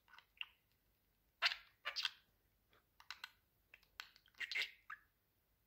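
Budgerigar chattering: clusters of short, scratchy, high chirps and warbles, with the loudest runs about a second and a half in and again around four to five seconds in.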